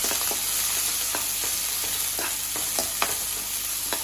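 Chopped onions and cumin seeds sizzling in hot oil in a metal kadai, with a metal spatula scraping and clicking against the pan at irregular moments as they are stirred.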